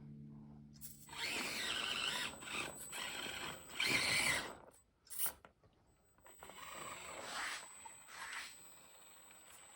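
Micro RC crawler's 50-turn brushed motor and geared drivetrain whirring under throttle, in two long bursts with a short one between them.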